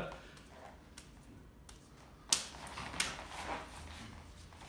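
Scuffling and body contact of two people in a close-range knife drill: a sharp hit a little past two seconds in, then a few lighter knocks and scuffles.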